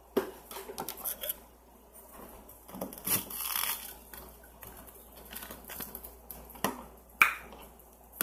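Fingers and long nails handling a piece of frozen pink ice close to a microphone: scattered sharp clicks and crackles, with a longer scratchy rustle about three seconds in.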